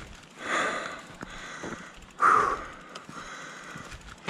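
A mountain biker breathing hard after riding, with two heavy breaths: one about half a second in and a louder one a little after two seconds.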